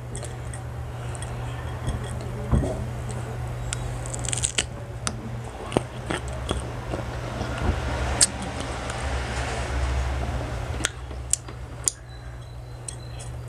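Close-up chewing of crisp unripe green carabao mango, with wet mouth sounds and scattered sharp crunchy clicks from bites.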